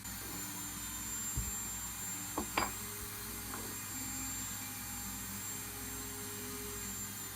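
A small electric power tool's motor running with a steady high whine, with a few clicks and knocks of metal contact about one and a half to three seconds in, while rust is cleaned off the metal parts of an antique coffee grinder.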